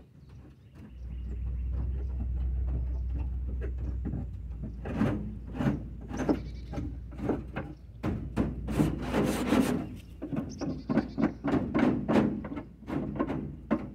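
A low steady rumble, then from about five seconds in irregular strokes of a hand scraper scraping dried muck off the coop's wooden surfaces, two or three strokes a second.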